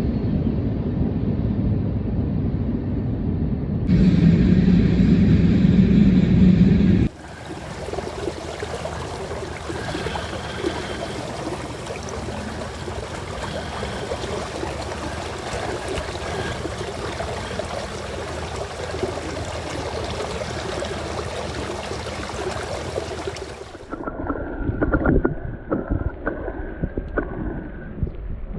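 River water rushing around a small pontoon boat, with wind buffeting the microphone. The sound changes abruptly a few times: a low heavy rumble at first, louder for a few seconds, then an even hiss for most of the stretch, then choppier near the end.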